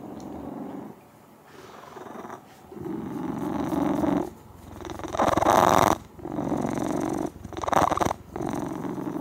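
Domestic cat purring very loudly, close up, in a steady run of swells about a second long, two of them louder around the middle and near the end.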